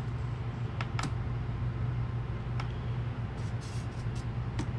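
Steady low hum of the shop's room noise with a few light clicks and taps as a tape measure is handled and shifted against the MDF enclosure.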